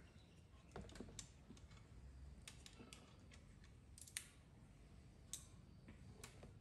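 Faint, irregular metallic clicks of a hand wrench working the 10 mm bolt that holds a crank angle sensor.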